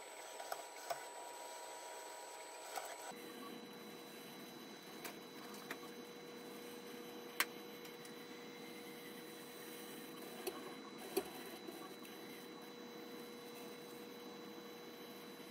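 Sped-up robot-lab sound: a steady mechanical whine of the robot arm, dropping to a lower pitch about three seconds in as playback slows from 8x to 4x. Scattered sharp clicks and knocks sound over it as the ball-tipped probe and the wooden block meet the wood and metal, the sharpest about halfway through.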